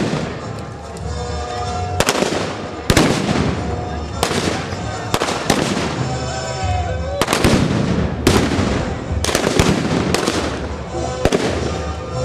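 Battle-reenactment gunfire: about a dozen sharp blank shots from period rifles, fired irregularly roughly every half second to a second, each with a short echoing tail.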